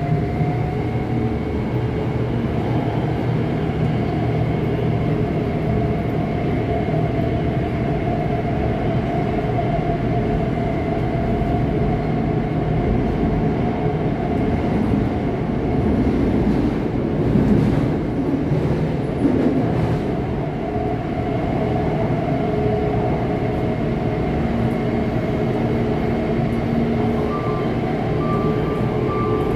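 Taipei Metro C321 train running through the tunnel: the steady rumble of the car with the whine of its GTO-VVVF traction inverter, rising in pitch in the first couple of seconds as the train pulls away and accelerates, then holding steady.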